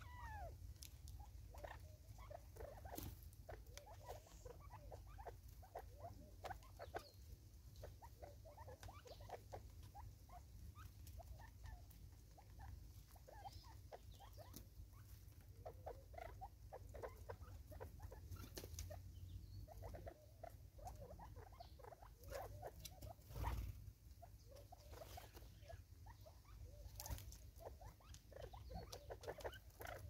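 Francolins feeding at a plastic bottle of seed: quick soft pecking, scratching and clicking, mixed with small squeaky calls, over a steady low rumble. A single louder thump comes about two-thirds of the way through.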